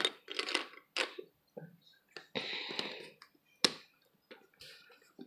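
Handling noise: scattered sharp clicks and knocks, with a short rustle about two and a half seconds in and a single sharp click a second later.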